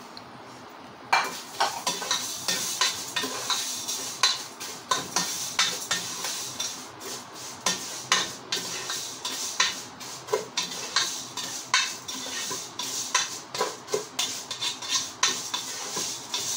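Ladle stirring thin vermicelli noodles in hot oil in a nonstick pot, with frequent irregular clicks and scrapes of the ladle against the pot over a light sizzle, as the noodles start toasting. The clicking begins about a second in.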